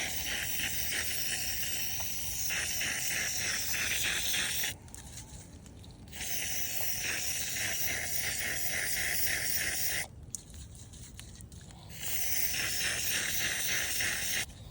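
Butane hissing out of a pressed refill-can nozzle as liquid butane is sprayed into a container, in three long bursts that each cut off abruptly.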